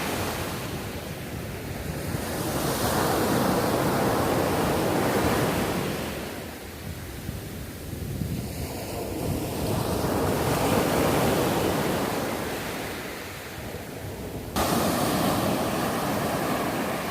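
Mediterranean surf breaking and washing up a sandy beach, swelling and easing every few seconds, with wind buffeting the microphone. The level jumps suddenly near the end.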